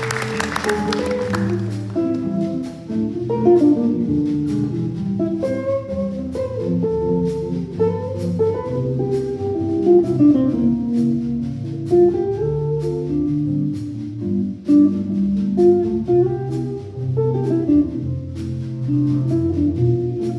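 Live jazz group playing: amplified hollow-body jazz guitars with double bass and drums. A cymbal wash fades out over the first two seconds, then the drums keep time with light, regular cymbal ticks under the guitar lines.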